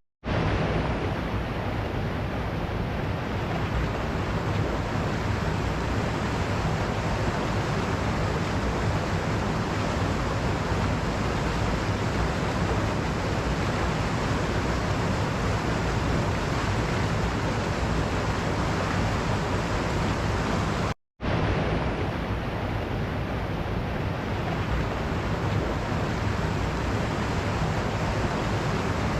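Waterfall: a steady, dense rush of falling water. The sound cuts out completely for a split second twice, right at the start and about two-thirds of the way through, like the splice points of a looped recording.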